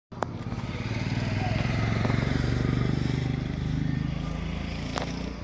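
A motor vehicle's engine running close by, a steady low hum that swells over the first few seconds and eases off toward the end. There is a sharp click near the start and another about five seconds in.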